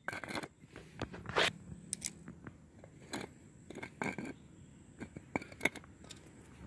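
Handling noise: irregular short scrapes and clicks of a plastic bug-viewer container being moved about and held, with the loudest scrape about a second and a half in.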